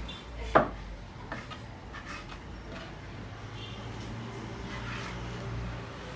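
A butcher's knife chopping meat on a wooden cutting board: one sharp, loud chop about half a second in, then a few lighter knocks.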